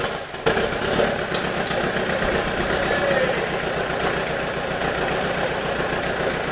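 Rebuilt Toyota Hilux 2.8 turbo diesel catching about half a second in, after cranking, and settling into a steady idle on its first start after the rebuild.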